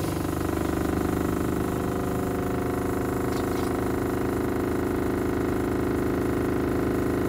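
SEAFLO 12-volt diaphragm water pump running steadily under demand, giving a humming drone, while water runs from the faucet into a plastic bottle.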